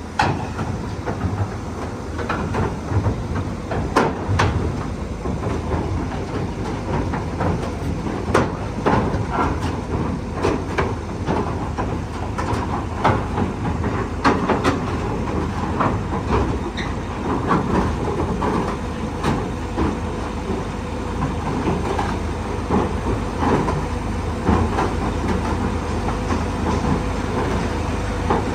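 Hyundai 220-9S crawler excavator's diesel engine running steadily, with irregular clanks and knocks from its steel tracks and undercarriage as it moves.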